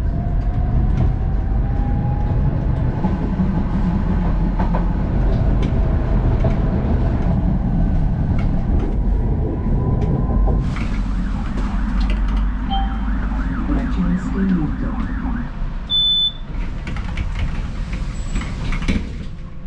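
Electric tram running, heard from inside the car: a steady low rumble of the wheels on the rails, with the motors' whine rising over the first few seconds as it picks up speed. From about eleven seconds in a steady hiss joins the rumble until shortly before the end.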